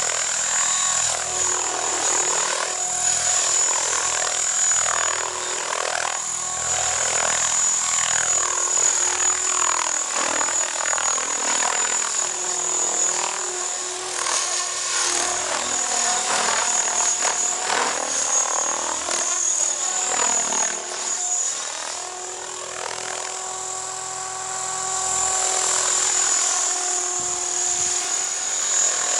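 Electric Align T-Rex 500 RC helicopter with a single counterweighted main rotor blade, flying aerobatics. The motor and rotor whine sweeps up and down in pitch as it manoeuvres, over a steady high-pitched whine.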